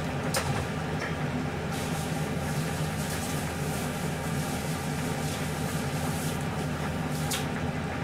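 Steady low mechanical hum in the room, with a few faint clicks.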